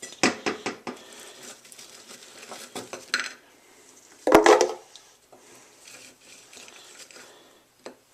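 Pieces of cut fruit dropping and knocking into a plastic Vitamix 5200 blender container from a plate. A quick run of knocks comes at the start, more follow around three seconds in, and the loudest clatter, with a brief ring, comes a little over four seconds in.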